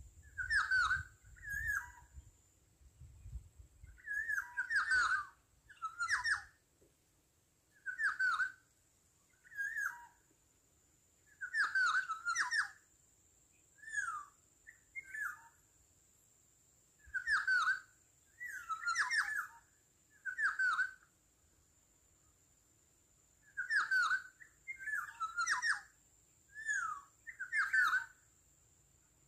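Black-naped oriole (kepodang) calls: short whistled phrases, repeated in irregular clusters of one to three, with pauses of a few seconds between clusters.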